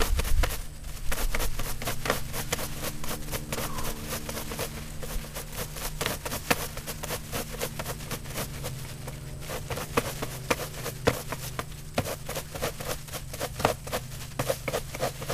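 Facial tissues being yanked one after another out of a tissue box in quick succession: a rapid, continuous run of papery swishes and crackles, several a second.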